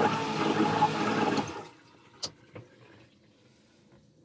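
Electric marine toilet flushing: its pump motor runs with water rushing through, then cuts off about a second and a half in, followed by two light clicks. It is a test flush to check the freshly resealed toilet base for leaks.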